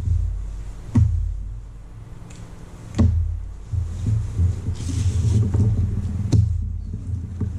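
Small magnets and 3D-printed plastic nosecone parts being handled and fitted together: four sharp clicks spread through, over a low steady hum, with a short hiss about five seconds in.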